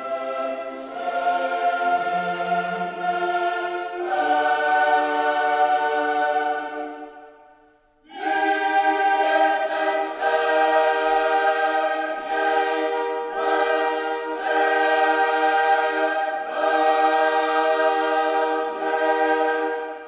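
Background choral music: a choir holding sustained chords that change every few seconds, fading away about seven seconds in and starting again with a new chord about a second later.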